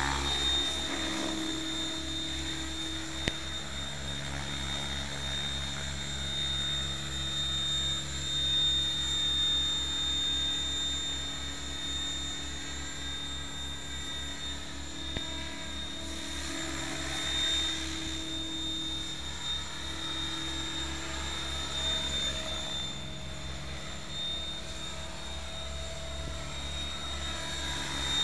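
Electric Mikado Logo 600 RC helicopter in flight, its rotor and motor running steadily with a high whine. The sound swells and its pitch sweeps as the helicopter passes close, most loudly around 8 seconds and 17 seconds in.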